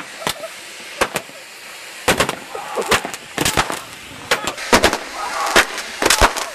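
Ground fireworks going off: more than a dozen sharp firecracker bangs at irregular intervals, some in quick clusters, over the steady hiss of spark fountains.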